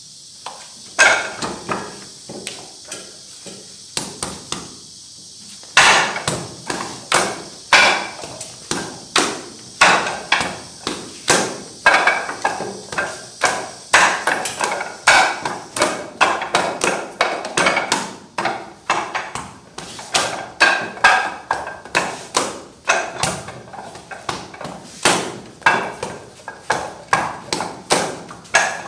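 Wooden Wing Chun dummy (mook jong) struck by hands and forearms in quick succession: an uneven run of wooden knocks and clacks, two or three a second, louder from about six seconds in.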